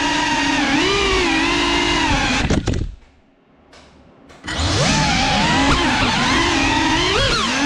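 GEPRC Cinelog 35 cinewhoop drone's motors and propellers whining, the pitch swelling and dipping with the throttle. About two and a half seconds in the motors cut out almost to silence, then spool back up a second and a half later and climb in pitch.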